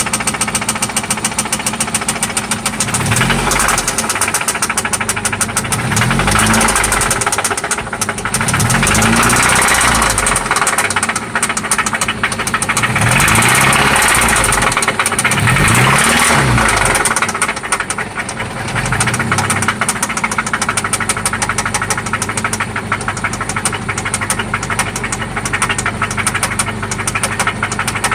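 1995 Toyota Celica ST engine running with a fast, steady knocking tick, blipped up and back down about six times in the first twenty seconds and then settling to idle. The knock is still there with fresh oil and new spark plugs.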